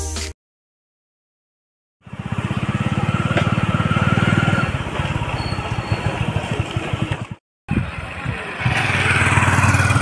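Hero Splendor's single-cylinder four-stroke motorcycle engine running at a steady road speed, heard as a fast rapid run of firing pulses. After a short break it is heard again, growing louder as the bike approaches. Music cuts off right at the start, followed by about a second and a half of dead silence before the engine comes in.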